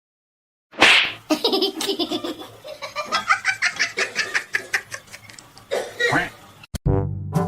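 A person laughing in a long run of quick, repeated bursts, starting suddenly about a second in.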